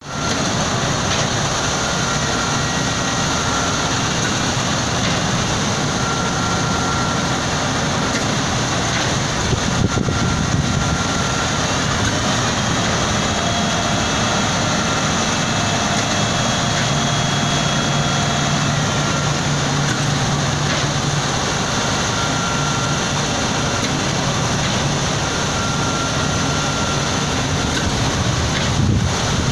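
Diesel engines of a UD Quester concrete mixer truck and a truck-mounted concrete pump running steadily while the mixer discharges concrete into the pump, with a short higher tone recurring every four seconds or so.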